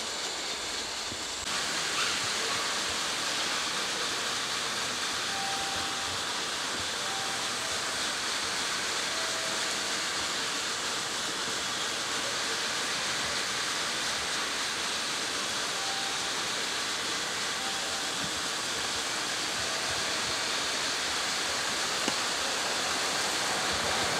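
Steady rushing noise that steps up slightly about a second and a half in.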